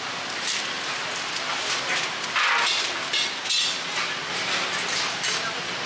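Metal kitchen utensils clinking and knocking: steel tongs and a steel scoop handled against a wooden chopping board and a steel wire tray, a series of irregular clinks over a steady hiss.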